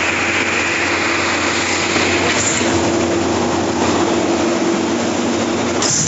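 Diesel concrete pump running steadily while pumping concrete: a loud continuous engine and machinery noise with a steady hum, and a short sharp sound about two and a half seconds in and again near the end.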